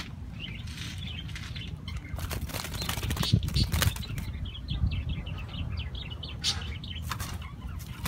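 Zebra dove flapping its wings inside its cage in several short bursts, loudest about three seconds in, as it shies away from a hand held out to feed it: the bird is afraid to eat from the hand.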